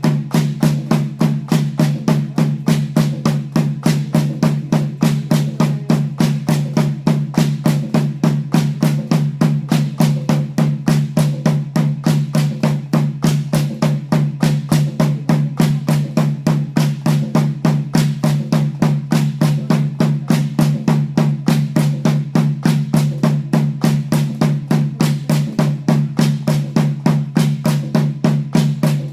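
Bamboo dance music: bamboo poles clacking together in an even, fast rhythm of about two to three strikes a second, with a steady low hum underneath.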